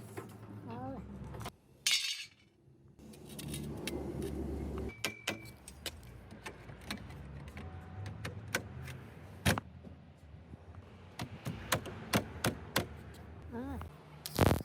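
Metal tools clinking and tapping in scattered sharp clicks, with a short loud burst about two seconds in and another near the end.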